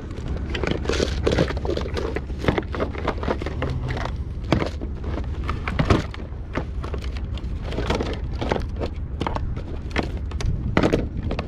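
Oscilloscope test leads, wires and clamps being picked up and handled: irregular clicks, knocks and clattering over a steady low rumble.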